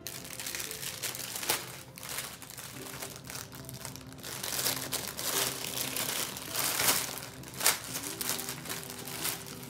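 Packaging crinkling and crackling as it is handled and opened, with a couple of sharper crackles, one about a second and a half in and one near the end.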